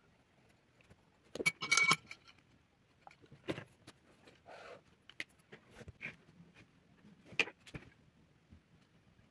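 A quick cluster of small clinks with a brief ringing, like metal or glass knocking together, about a second and a half in, followed by scattered soft taps and handling noises.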